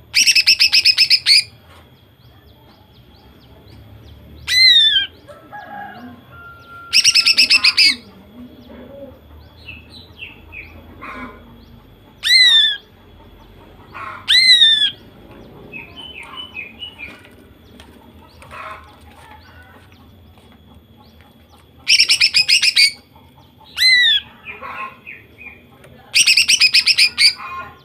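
Female cucak ijo (green leafbird) calling: four loud, rapid rattling bursts of about a second each, the rapid-fire 'nembak' call. Between them come several sharp whistled notes that sweep steeply downward, and softer twittering chatter.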